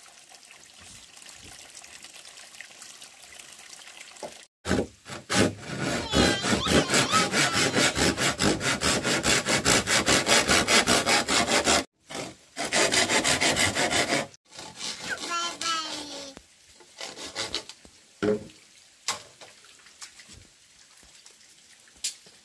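Hand saw cutting through a green bamboo pole with fast back-and-forth strokes. It runs in two bouts, a long one starting about four seconds in and a short one after a brief pause, then stops.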